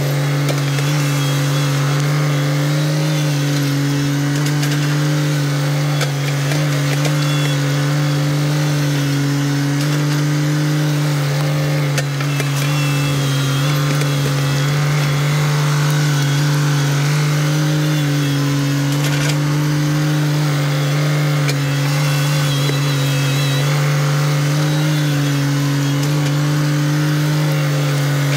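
Kubota BX subcompact tractor's three-cylinder diesel engine running steadily while the front loader works a stump bucket under a tree root. Its pitch dips slightly now and then as the engine takes load.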